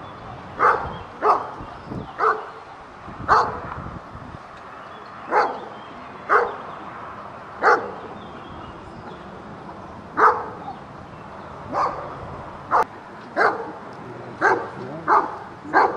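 Briard barking at a ring-sport decoy, guarding him at close range: about a dozen sharp single barks at uneven intervals, several coming in quick pairs.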